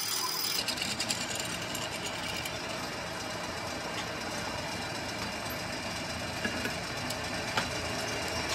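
Workshop machinery running steadily with a dense mechanical hum and a few faint ticks.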